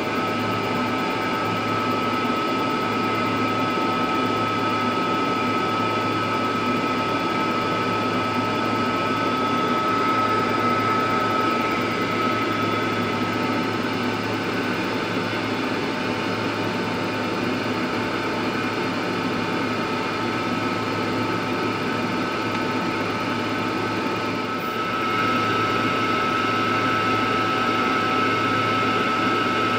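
A laser machine working on a phone's back glass while a fume extractor fan draws air from its enclosure: a steady blowing hum with a thin, high, steady whine. The sound is a little louder for the last few seconds.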